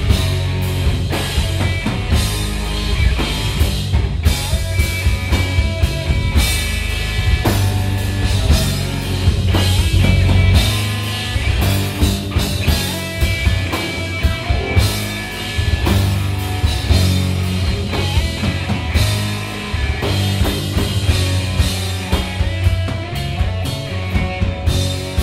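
Rock band playing loud live: drum kit with regular hits over a heavy bass line and guitars.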